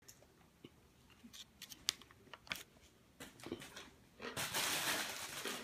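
Plastic wrapping of a cheese pack crinkling as it is handled: scattered crackles and clicks, then just over a second of continuous rustling near the end, the loudest part.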